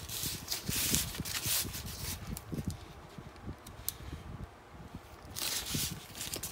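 Crinkling and rustling of the protective plastic wrap on a leather bag strap as it is handled, in bursts at the start and again near the end, with a few light clicks in the quieter middle.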